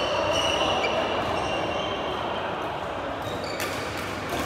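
Badminton play in a large hall: shoes squeaking on the court floor, then two sharp racket hits on a shuttlecock near the end.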